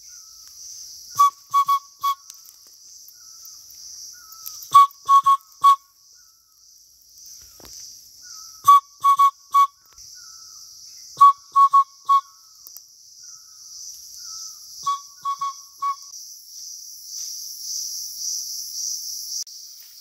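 A man whistling a bird call through his cupped hands: a phrase of three or four short, clear notes, repeated five times about every three and a half seconds. A steady high insect buzz runs underneath.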